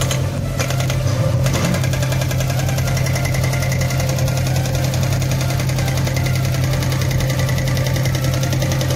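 JCB 3DX backhoe loader's diesel engine running steadily under load while the backhoe arm digs, with a fast even engine rhythm and a steady low hum.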